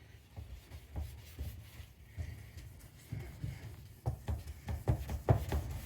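Polishing compound being rubbed by hand into a plastic headlight lens: uneven rubbing strokes with soft knocks, no motor running.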